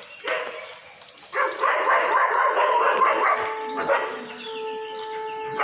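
Dogs barking and yelping in a loud, rapid flurry starting about a second and a half in. A steady pitched tone holds through the last two seconds.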